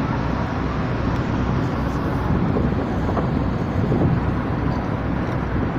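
Steady low rumble of a moving boat at sea, with wind on the microphone.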